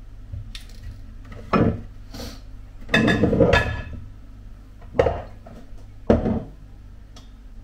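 Kitchen clatter as items are handled and set down on a counter: a knock, a longer stretch of clattering about three seconds in, then two more knocks.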